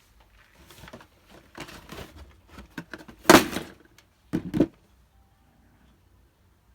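Hands handling an iPhone XS retail box and its packaging: scattered rustles and scrapes of cardboard and plastic, one louder scrape or rub a little past the middle, then two quick knocks, then quiet.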